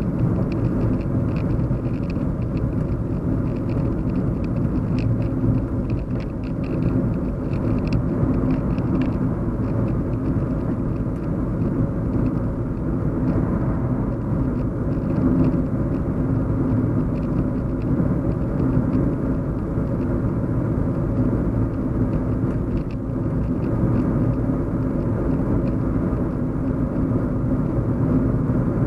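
Steady low hum and road rumble inside a moving car's cabin, with faint light ticks during the first third.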